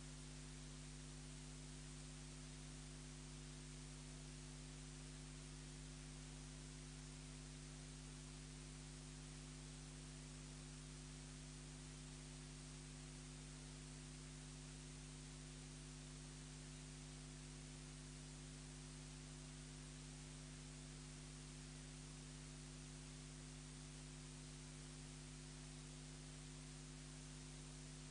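Near silence: a steady electrical hum with faint hiss, unchanging throughout.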